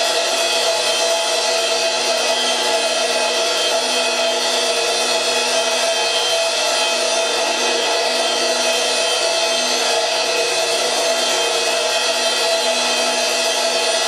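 Cymbal on a stand sounded by friction against its edge, giving a steady metallic drone of many overlapping tones with no strikes.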